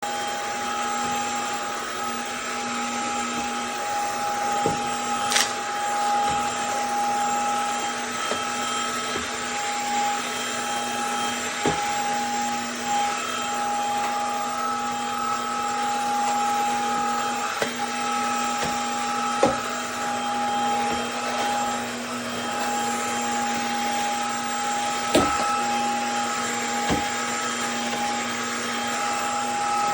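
Cordless stick vacuum cleaner (MONSGA MV3) running steadily with a constant motor whine, with short sharp clicks every few seconds.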